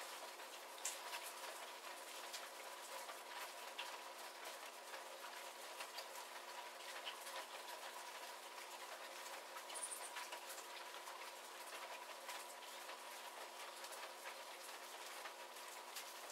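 Light rain shower, with individual drops pattering and ticking on surfaces over a steady soft hiss.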